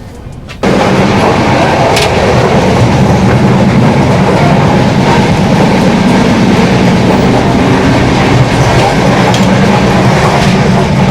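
Indian passenger train running on the rails: a loud, steady rumble and rattle of the wheels and carriage that starts abruptly under a second in.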